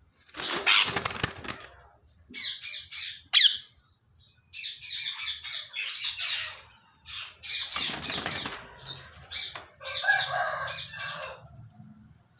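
A caged parrot calling in series of raspy, chattering squawks, with a sharp loud call about three seconds in. Twice, near the start and about eight seconds in, comes a burst of wing flapping.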